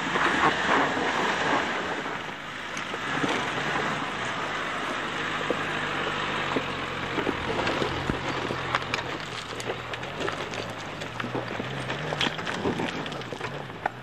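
Suzuki Samurai's four-cylinder engine running at low revs as the 4x4 crawls past at close range, its tyres crunching over rocks and sticks with scattered sharp cracks and pops. The engine note wavers up and down throughout.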